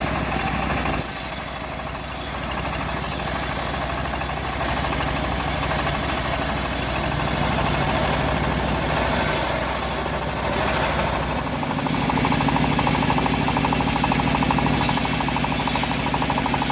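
Homemade bandsaw mill running steadily. About twelve seconds in, it grows louder with a stronger, steadier hum.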